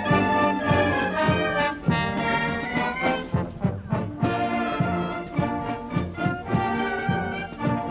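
Brass band playing full-voiced music with a steady beat.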